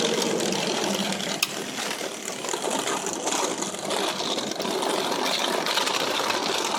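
Skateboard wheels rolling and rattling steadily over pavement, with one sharp click about a second and a half in.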